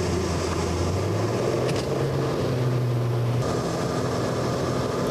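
Cessna 185's piston engine and propeller droning steadily in flight, heard from inside the cabin; the low hum steps up slightly in pitch about a second in.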